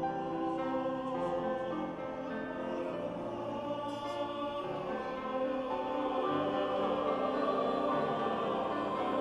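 Classical choral music with long held notes, growing a little louder about two-thirds of the way through.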